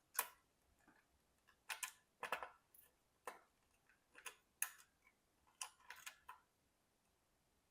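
Irregular sharp clicks and knocks, about ten spread over several seconds, as a CPU cooler is pressed down onto an LGA 775 motherboard. The cooler is hard to push into place.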